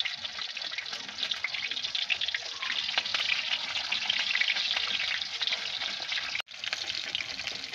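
An egg frying in hot oil in a wok: steady sizzling full of small crackling pops. It cuts out suddenly for a moment about six seconds in.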